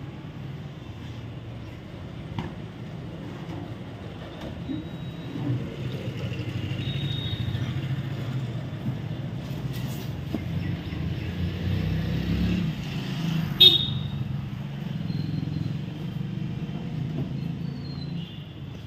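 Steady low rumble of distant road traffic, with a single sharp click about two-thirds of the way through.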